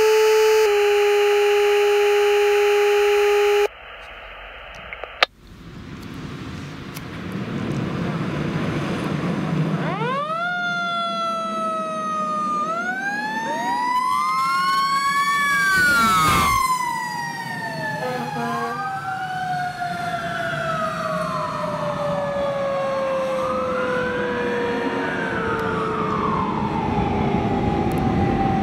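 A short steady electronic tone, then a 2016 Rosenbauer Commander pumper fire engine running its sirens: rising and falling wails that overlap as it passes, with a brief horn blast halfway through. After that a long, slowly falling siren tone and more wails continue as the engine moves away.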